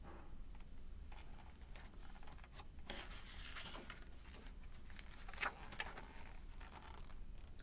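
Faint rustling of a picture book's paper page being turned by hand, with a few soft strokes of paper sliding over paper, most noticeable about three seconds in and again after five seconds.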